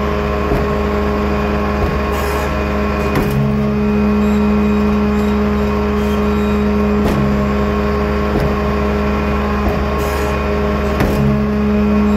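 A truck-powered walking floor trailer working: a steady machine drone under a faint clunk about every 1.3 s as each slat group steps back, three to a cycle. A brief change in the drone follows each group of three, about every 4 s, as all the slats move together to push the load out.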